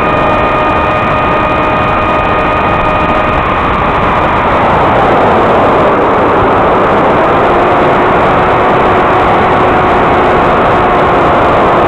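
Electric motor and propeller whine of a Ritewing Hardcore 44 flying wing, recorded through a distorted FPV DVR audio feed under heavy hiss. The whine holds a steady pitch, wavers about four seconds in, then settles at a lower pitch from about seven seconds as the throttle comes back.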